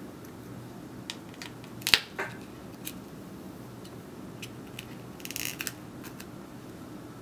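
Small sharp clicks and taps of tools and parts handled during an iPhone 5 teardown: one louder click about two seconds in and a short run of rapid clicks near the end, over a steady low hum.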